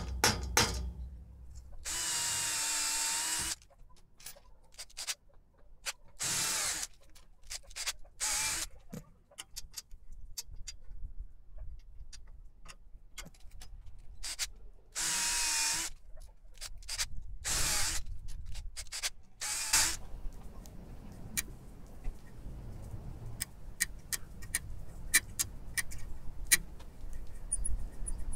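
Power drill running in about six short bursts, the longest about a second and a half, drilling holes through a small flat metal part clamped in a bench vise. After that come only light clicks and taps of metal being handled.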